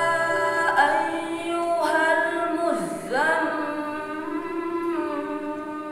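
A young voice chanting a slow melodic line with long held notes, which slides deeply down and back up near the middle. It is laid over background music with soft sustained notes.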